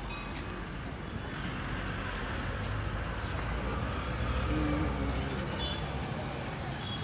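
Street traffic: a motor vehicle's engine rumble, swelling a little about four to five seconds in.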